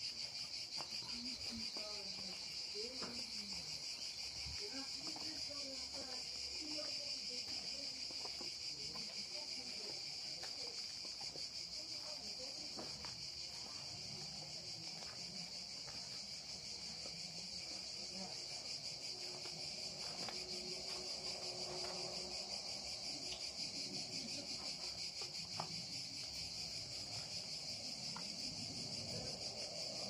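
Insects chirring in a steady, continuous high-pitched drone that never lets up.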